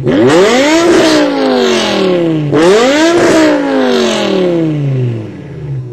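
Performance car engine and exhaust revved twice from idle in quick blips. Each rev rises sharply, then falls slowly back. The engine settles to a steady idle near the end.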